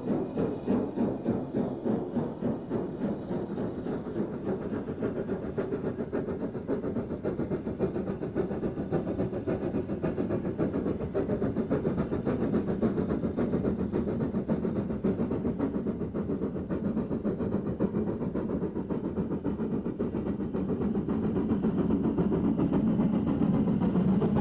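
BR Standard Class 4 2-6-4 tank steam locomotive, a two-cylinder engine, working a train with a steady rhythm of exhaust beats, growing louder near the end as it approaches.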